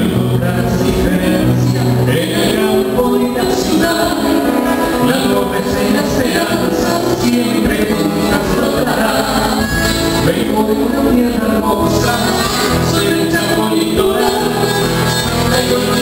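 Live Argentine litoral folk music: two acoustic guitars and an accordion playing together, with singing.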